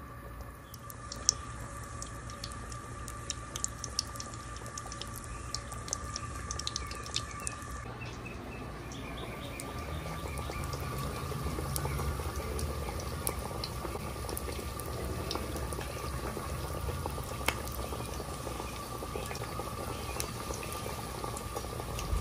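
Breaded chicken breasts frying in hot oil in a pan: a steady sizzle full of sharp crackles and pops, growing a little louder and fuller after about ten seconds as the oil foams up. A steady hum runs underneath.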